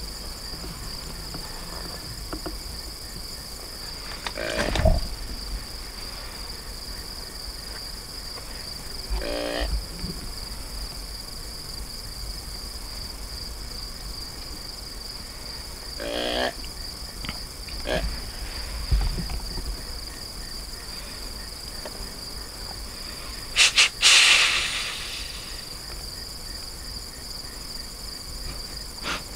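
Steady high-pitched chorus of crickets and other insects, with a few short, soft noises over it and one brief louder noise about 24 seconds in.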